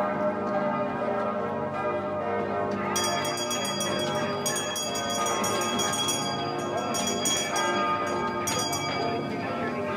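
Church bells ringing, many strokes overlapping in a continuous peal with long ringing tones; higher, brighter tones join about three seconds in.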